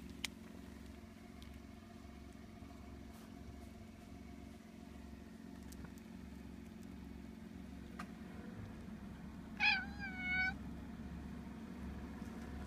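Tabby-and-white domestic cat giving one short meow about ten seconds in, bending in pitch, over a steady low hum.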